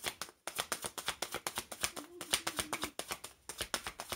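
Oracle cards shuffled by hand: a rapid run of soft card clicks, pausing briefly near the start and again about three seconds in.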